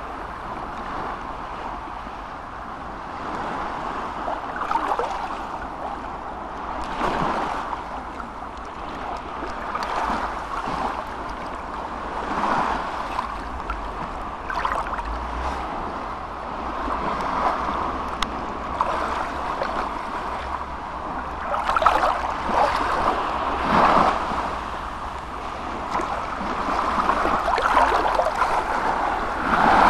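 Small sea waves lapping and breaking on a beach, the wash swelling every two to three seconds, over a steady low wind rumble.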